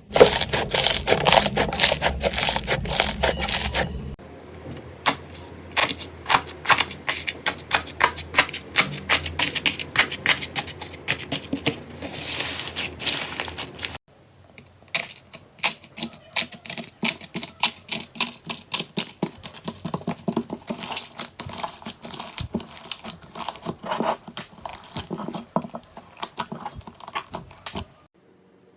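Slime being squeezed and poked by hands, making fast runs of crisp clicks, pops and crackles. It comes in three stretches that change abruptly about four and fourteen seconds in, the first the loudest.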